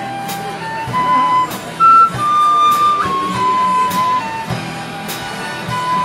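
A tin whistle plays a melody of held notes, the loudest and highest about two seconds in, over an acoustic-electric bass guitar and light regular taps.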